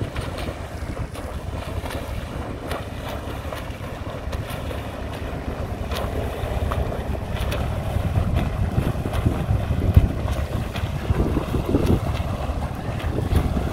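Wind rumbling on the microphone over the splashing of swimmers setting off into the river, with frequent short splashes.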